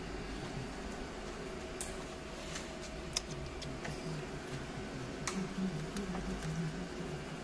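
A steady low hum with a few scattered light clicks and ticks, like small parts being handled.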